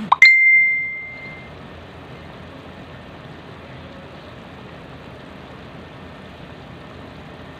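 A pot of chicken tinola soup at a rolling boil, giving a steady bubbling hiss. Just after the start a sudden loud, high ringing tone sounds and fades out within about a second.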